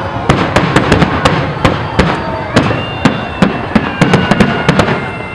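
Fireworks display: a rapid run of aerial shell bursts, several sharp bangs a second over continuous crackling. A steady whistling tone sounds among them from about two and a half seconds in.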